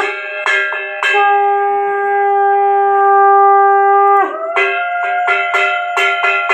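Conch shell (shankh) blown for worship in a long, steady note that breaks off about four seconds in and is taken up again slightly lower, with a bell struck repeatedly over it.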